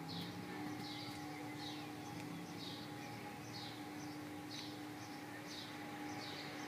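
A bird calling over and over: a short, high, falling note about once a second, over a steady low hum.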